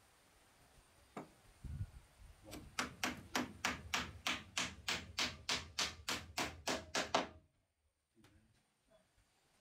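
A rapid, even run of about twenty sharp knocks, four or five a second, starting about two and a half seconds in and stopping suddenly about five seconds later.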